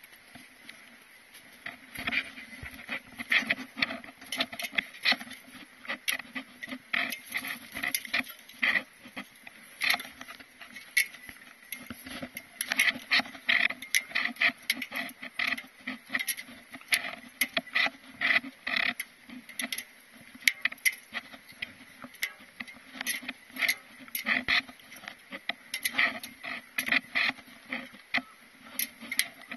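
Boots crunching in snow while walking downhill, an irregular step about once or twice a second.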